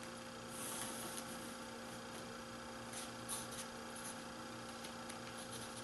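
Steady electrical mains hum, with a few faint, brief scratches of a pencil drawn along a metal ruler on burled olive ash veneer.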